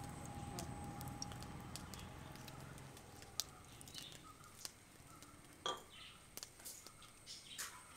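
Cooking oil poured from a bottle into a frying pan over a wood fire, a low faint pouring sound that fades out over the first three seconds. After that come scattered small crackles and pops as the oil heats over the fire.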